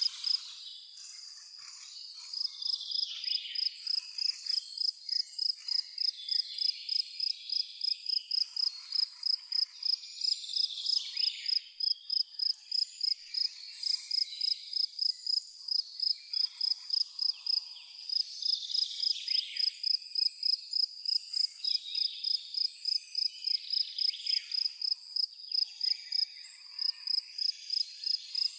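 A cricket chirping steadily in a high, even pulse of about three chirps a second, pausing briefly near the start and again near the end, over a background of scattered bird chirps and song.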